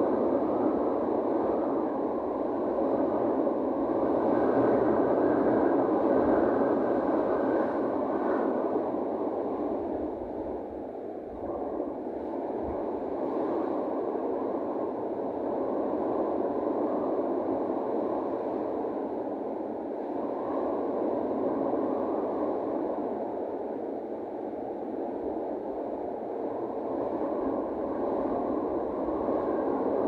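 Steady rushing wind at sea, swelling and easing slowly, with a brief lull about ten seconds in.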